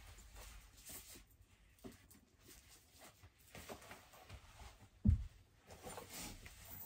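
Faint rustling and handling noises as a bag and small objects are moved about, with one dull thump about five seconds in.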